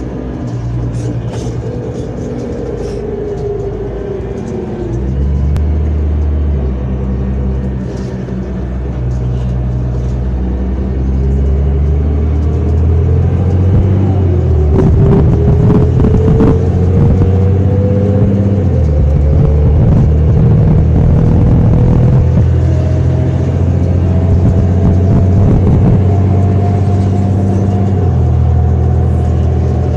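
City bus engine and drivetrain heard from inside the bus while riding: a steady low drone, a falling whine a few seconds in as it slows, then a long rising whine from about halfway as it pulls away and gathers speed. Brief knocks and rattles come through in the middle.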